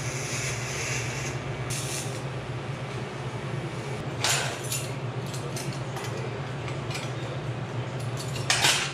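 TIG welding arc hissing as a tack weld is laid on a pie-cut exhaust downpipe, cutting off about a second in. After it come three short clanks and scrapes of the metal parts being handled, over a steady low hum.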